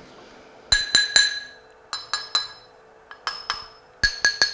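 Glass being clinked or tapped: sharp clinks in quick groups of two to four, each with a brief bright ringing tone.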